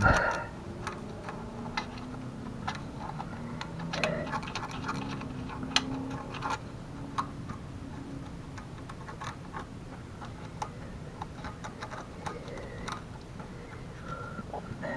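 Dental-kit pick clicking and scraping irregularly against the rear hinge of a mobility scooter, working packed dirt out of it.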